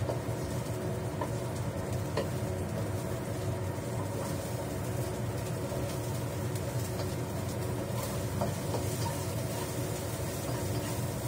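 Steady hum of a kitchen range hood fan over a gas burner turned up high, with a few light clicks of a spatula against the pan as garlic is stir-fried in oil.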